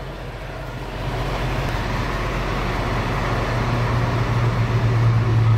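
Engine rumble over a steady wash of traffic noise, with a low hum that grows louder over the last two seconds.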